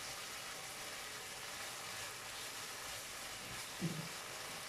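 Chopped onion, capsicum and carrot sizzling steadily in ketchup sauce in a nonstick wok over a high gas flame as a spatula stirs them, with one brief louder sound near the end.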